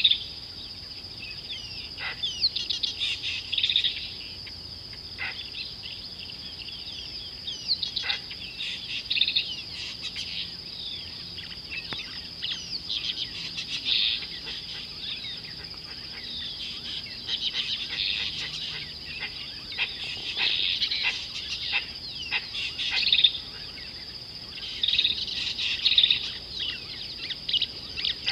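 Small birds chirping and twittering in bursts every few seconds, over a constant high-pitched whine.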